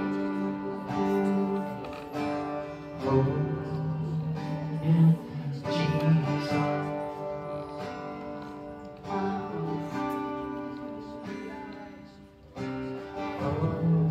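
Acoustic guitar strumming slow chords, each struck and left to ring out and fade before the next.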